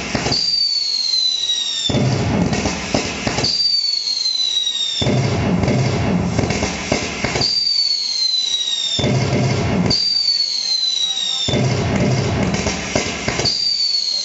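Recorded fireworks sound effect from a firecracker-style decorative tree light, playing in a loop. Each cycle is a falling whistle of about a second and a half followed by a dense stretch of crackling bursts, and it repeats about five times.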